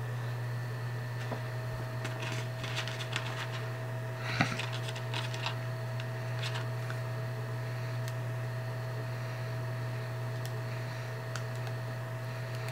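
Steady low electrical hum of room tone, with faint crackling rustles of hair being twisted between fingers from about two seconds in, and one sharper tick a little past four seconds.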